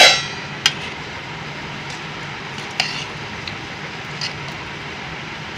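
Stainless steel ladle knocking against a steel pot of kheer as it is stirred: a loud ringing clink at the start, another just after, then two lighter clinks. A steady low hum runs underneath.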